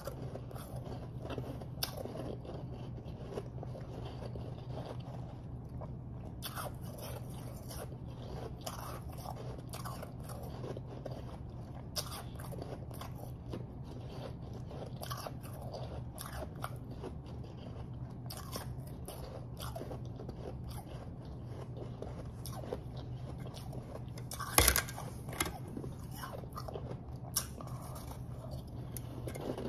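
Close-miked chewing of refrozen powdery snow ice: continuous fine crunching and crackling, with one much louder crunch about three-quarters of the way through. A steady low hum runs underneath.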